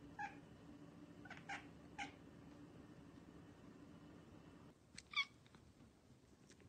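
Domestic cat making short, high chirping calls: four quick chirps in the first two seconds, then, after a pause, two more brief chirps near the end. Under the first chirps runs a faint steady low hum.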